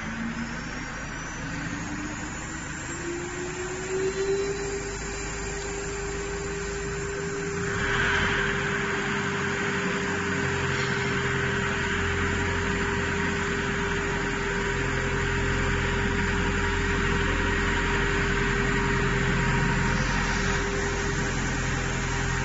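CNC router's electric spindle spinning up, its whine rising in pitch over the first four seconds or so and then holding steady. A steady machine hiss grows louder about eight seconds in.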